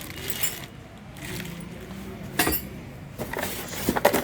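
Handling noise from unpacking chainsaw accessories: short rustles, a sharp click about halfway through, then a quick run of clicks and knocks near the end.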